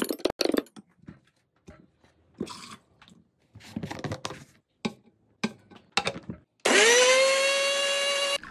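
Light clicks and taps, then about two seconds from the end a small electric blender motor switches on, its whine rising quickly in pitch and then holding steady.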